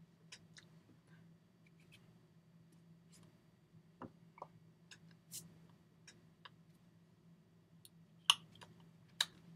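Scattered faint clicks and taps from a person signing, hands brushing and tapping against each other and the body, with two sharper clicks near the end, over a steady low hum.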